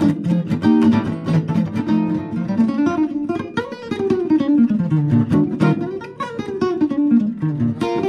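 1953 National California archtop electric guitar, plugged in and played with a pick: quick single-note lines that climb and fall, mixed with strummed chords. Its volume and tone pots have just been cleaned and treated with contact restorer, and the tone is very mild.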